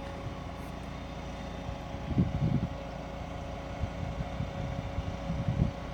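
A vehicle engine running steadily, a constant low rumble with a steady hum, with a few low thumps about two seconds in and again near the end.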